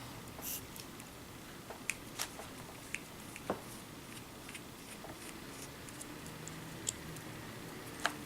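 Scattered light clicks and taps of a small screwdriver and plastic parts being handled while a servo horn is taken off an RC car's steering servo.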